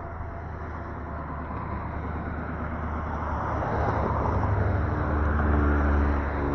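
Road traffic: a motor vehicle passes close by over steady road noise, growing loudest about five to six seconds in and then easing off.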